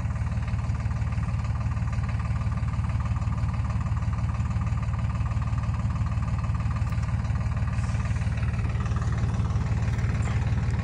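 A tractor's diesel engine running steadily, an even, unchanging engine note.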